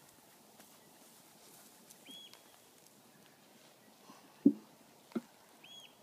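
Quiet outdoor background with a short high chirp twice, about three and a half seconds apart, and two short bumps around the middle and later on, the first one the loudest.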